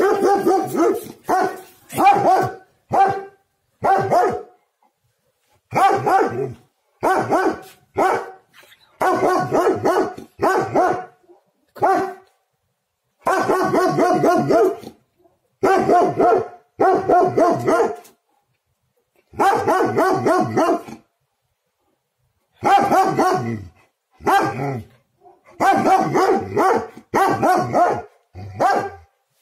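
Angry dog barking hard and repeatedly, in runs of loud barks with short silent gaps between them.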